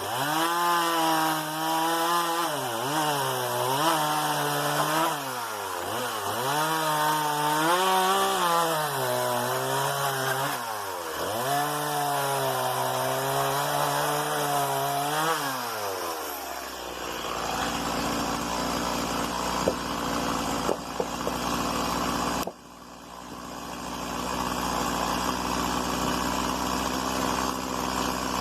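STIHL MS 170 two-stroke chainsaw running at high revs, its engine note dipping and recovering several times as the chain cuts into wood. About 16 s in it drops back to a steady idle.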